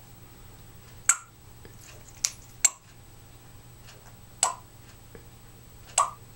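Five short, sharp clicks, irregularly spaced about a second apart, over a faint steady hum.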